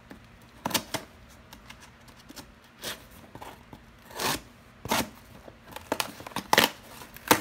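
Cardboard shipping box being torn open by hand: an irregular series of short rips and rustles, loudest near the end.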